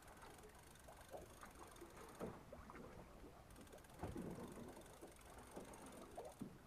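Faint mechanical clicking of a conventional fishing reel being cranked as a fish is reeled up, with a few light knocks, the loudest about four seconds in.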